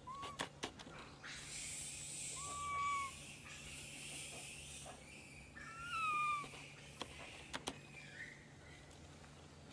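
Young macaques in a tree giving short, high squeaky calls, three of them, against a steady high hiss, with a few sharp clicks from the branches.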